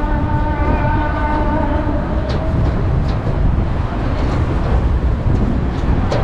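Steady low rumble of passing vehicle noise, with faint higher tones in the first half and a few short clicks.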